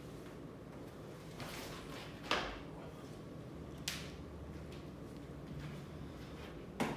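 A few brief swishing and knocking noises, the loudest a little over two seconds in, over a faint steady hum.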